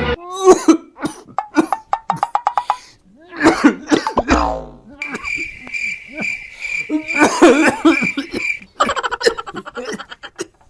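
Repeated short coughs mixed with comic sound effects: a falling glide about four seconds in, then a steady high pulsing tone from about five seconds until near nine.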